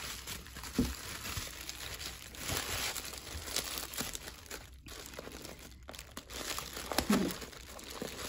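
Plastic bubble wrap crinkling and rustling as it is handled and unwrapped, on and off, with two short pauses about halfway through.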